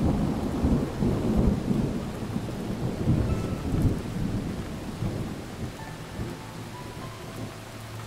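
Thunderstorm: a rolling rumble of thunder over steady rain. The rumble is loudest in the first few seconds and slowly dies away.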